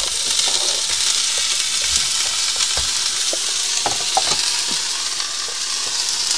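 Frying pan of sweet potato, hamburger patties and freshly added broccoli sizzling steadily on the hob, with a few faint clicks from the food and utensils in the pan.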